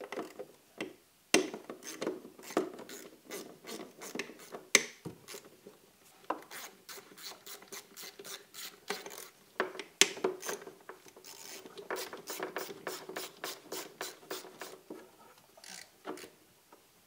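Hand ratchet clicking in quick runs as the throttle body bolts are backed out, with a short pause about five seconds in and a long, fast run after it, tailing off near the end.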